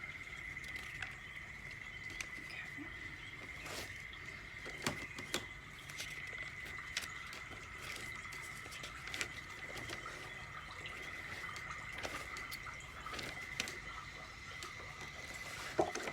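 Scattered light clicks and knocks of small objects being handled, about a dozen at irregular intervals, over a steady high-pitched whine and a low hum.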